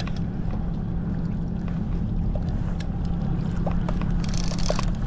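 Boat outboard motor running steadily, a low even hum, with a few faint clicks over it.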